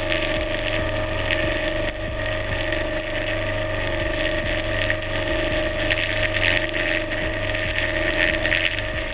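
Milwaukee angle grinder fitted with an asynchronous (brushless induction) motor with combined 'Slavyanka' windings, running steadily with no disc fitted: a steady low hum with a constant mid-pitched whine over it.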